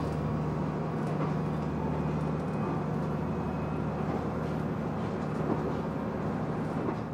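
Steady running noise inside a moving diesel tourist train's passenger car, with a constant low hum under the rail and wheel noise.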